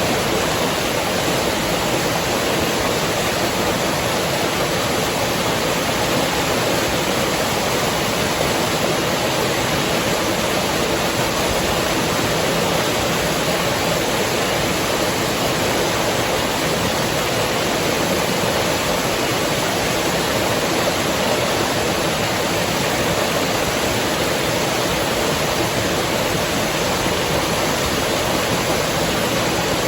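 River water rushing steadily, an even noise with no separate splashes, calls or breaks.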